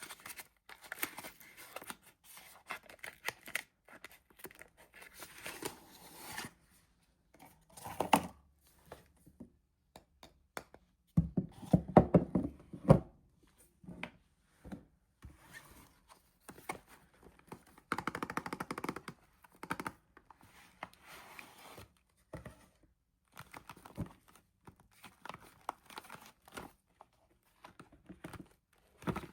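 Bars of soap being unwrapped by hand: packaging crinkling and tearing, with soft thunks as the bars are handled and set down, and a run of louder knocks about eleven seconds in.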